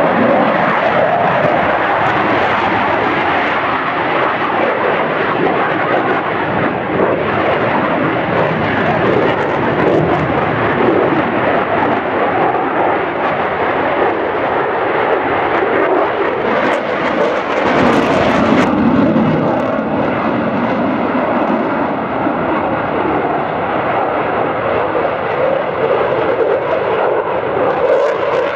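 Loud, continuous jet noise from a Eurofighter Typhoon's twin EJ200 turbofans during a flying display. About 18 seconds in, a high hiss cuts off sharply, and a few steady whining tones sound over the noise after that.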